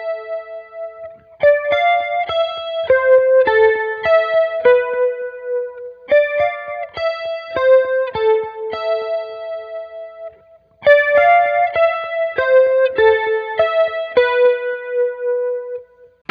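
Electric guitar played through effects pedals: a high, picked melodic riff of repeated two-note figures, played three times with short breaks between.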